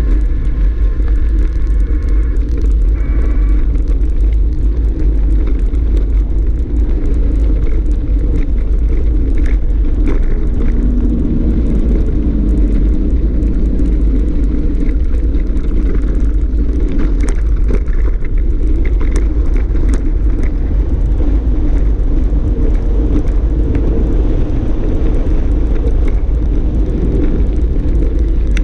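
Steady low rumble of wind buffeting a moving camera's microphone as a mountain bike rolls over a gravel dirt trail, with short clicks and rattles from the bike over rough ground, most through the middle stretch.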